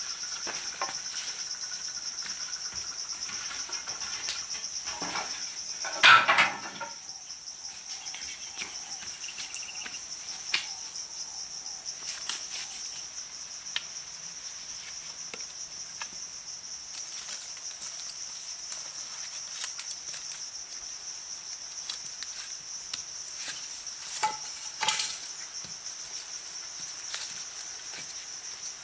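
Steady high-pitched drone of insects, with wooden sticks knocking and clattering now and then, loudest about six seconds in and again a couple of times near the end.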